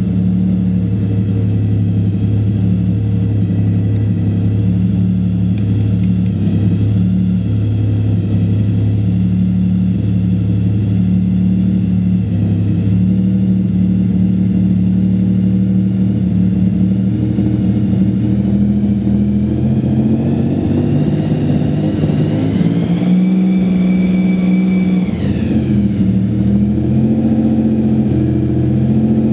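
Nissan VG30DETT twin-turbo V6 running, with a strange high, wavering whine over its steady note. Late on, the revs shift and the whine climbs, holds, then drops away about 25 seconds in.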